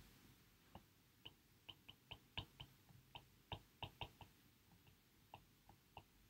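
Faint, irregular clicks and taps of a stylus on a tablet screen during handwriting, about two to three a second.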